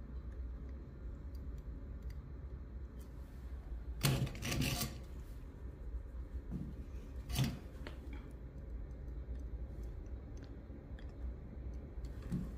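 Small hand tools being put down on a workbench: a clattering knock about four seconds in and a shorter one about three seconds later, over a steady low hum.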